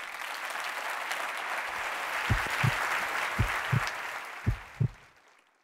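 Audience applauding steadily, fading out and stopping near the end. In the second half, three pairs of deep low thuds sound over the clapping.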